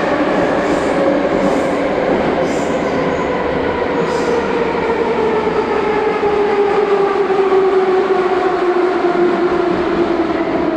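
Inside a Moscow metro 81-717.5A car running through the tunnel: loud running noise with the traction motors' whine falling steadily in pitch as the train slows. A few light rail clacks sound in the first few seconds.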